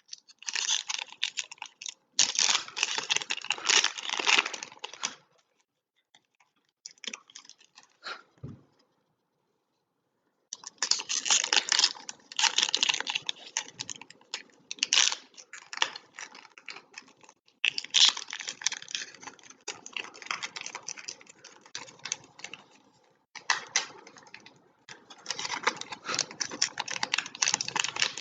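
Trading card pack wrappers being torn open and crinkled, in bursts of crackly rustling broken by a pause of a few seconds about a third of the way in.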